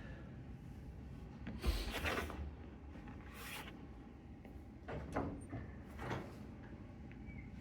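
A dull thump about two seconds in, then a few brief scuffing noises.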